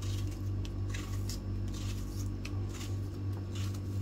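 Kitchen knife cutting through a hand-held tomato in a series of short, irregular strokes, wet chunks dropping into a bowl of raw mutton, over a steady low hum.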